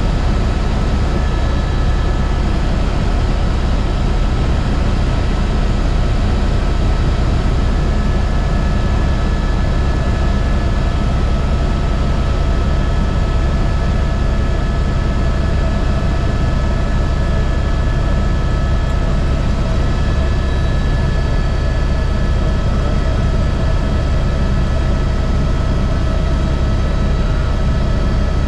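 Airbus H125 helicopter in flight: its single turboshaft engine and rotors run steadily, a constant high whine over a deep, dense drone.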